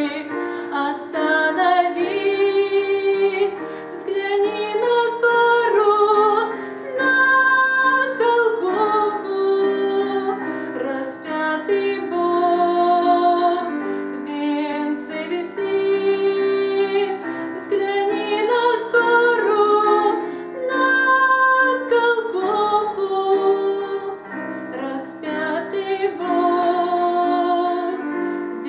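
Music: a slow Christian song, a female voice singing over instrumental accompaniment.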